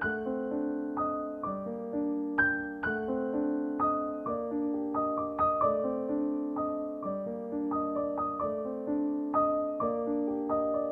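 Background piano music: a gentle melody of struck notes and chords, each note fading after it is played.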